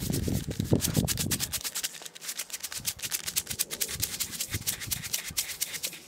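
A plastic jar of Tannerite binary exploding target being shaken hard, its granules rattling rapidly and evenly as the two components are mixed before shooting. There are some heavier handling knocks in the first second or so.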